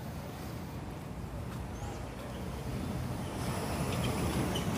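Street traffic: a steady low rumble that swells near the end as a vehicle comes closer, with a few faint high chirps.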